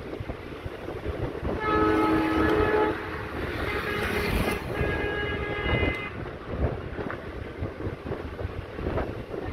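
WDG3A diesel locomotive's horn sounding two blasts, the first about a second and a half in and lasting roughly a second and a half, the second about five seconds in and a little shorter. Wind rumbles on the microphone throughout.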